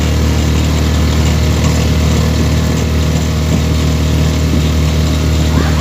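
Steady engine drone of the open-sided vehicle being ridden in, a strong low hum that holds even throughout, heard from inside. A brief scratchy rustle near the end.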